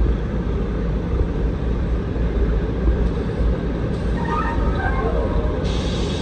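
Steady low rumble of city street noise, with a few faint, brief higher tones about four seconds in.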